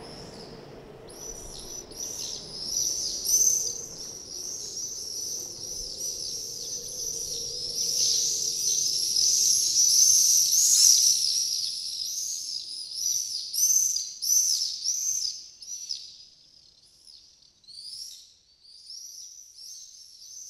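A chorus of many small birds chirping and twittering over one another. It swells to its fullest around the middle, then thins to scattered chirps near the end.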